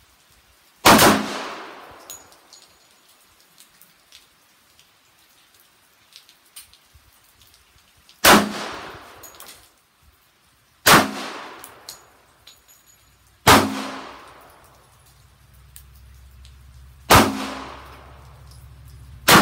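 Handgun fired in slow, deliberate single shots: six shots several seconds apart, the first about a second in and the last right at the end, each followed by a short ringing echo.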